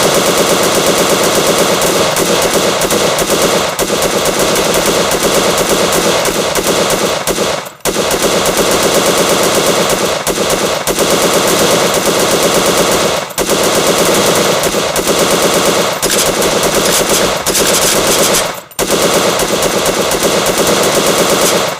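M1919 Browning machine gun firing full-auto in long, rapid, continuous bursts, broken by short pauses about eight, thirteen and nineteen seconds in. The fire cuts off suddenly at the end.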